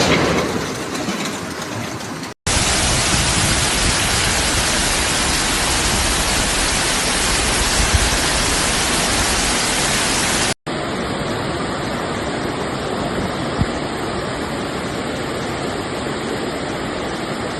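Steady rushing of floodwater, in three stretches that cut off suddenly about two and ten seconds in; the middle stretch is the loudest.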